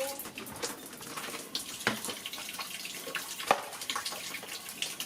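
Bath water splashing and dripping in irregular small splashes, with two louder splashes about two seconds and three and a half seconds in.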